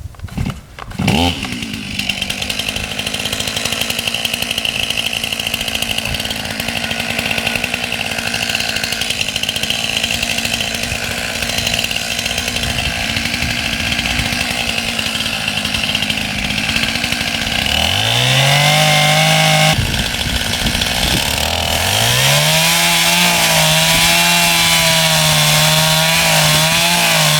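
Chainsaw starting up about a second in and running steadily, cutting into a tree trunk to fell it. The engine pitch rises about eighteen seconds in, drops, then rises again and holds.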